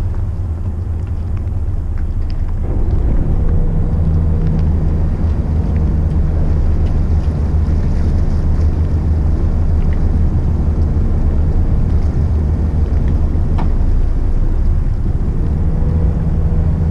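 McKinna 65 motor yacht's diesel engines running at low speed with a steady low drone. About two and a half seconds in it grows a little louder and a higher steady hum joins; the hum fades around twelve seconds and comes back near the end.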